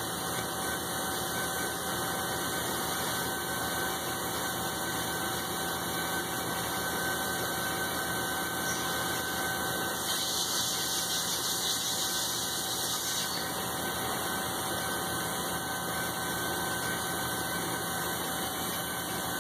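Metal lathe running at a steady speed, a continuous mechanical hum with a faint steady whine, while a dial indicator checks how true the case runs in the chuck.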